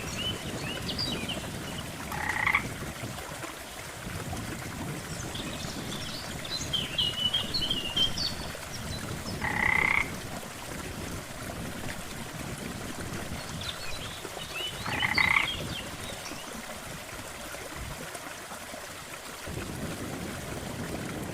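Frogs croaking: three loud croaks, each about half a second long, come roughly six seconds apart. Faint high chirping calls and a steady low background hiss run beneath them.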